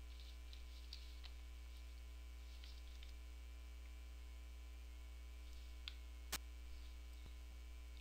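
Steady low electrical mains hum, with a few faint clicks, the sharpest a little past the middle.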